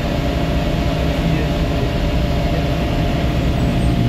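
Vehicle engine running steadily at cruising speed, with road and wind noise.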